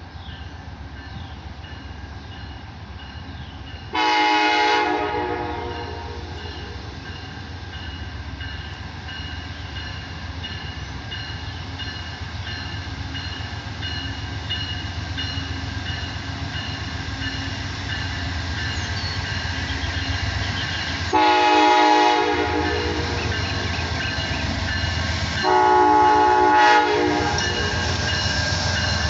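Amtrak GE P42 Genesis diesel locomotive approaching, its engine rumble growing steadily louder, sounding its multi-note horn three times: one blast about four seconds in, then two more near the end, the last slightly longer.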